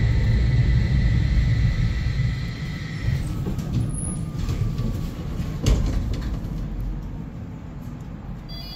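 Tram heard from inside, running on rail and slowing to a stop at a platform. A steady low rumble and a high motor whine drop away about three seconds in, then a fainter whine falls in pitch as it slows, with a single sharp clunk near the middle, and the running noise dies down.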